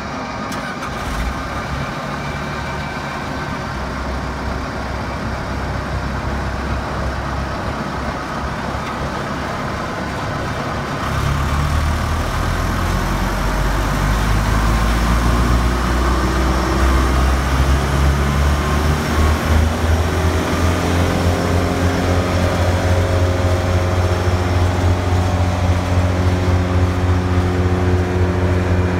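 The 140 hp John Deere turbo diesel of a Morbark Hurricane 2400XL drum chipper running. About eleven seconds in it is throttled up; its pitch climbs over the next several seconds and it then runs steadily at high speed.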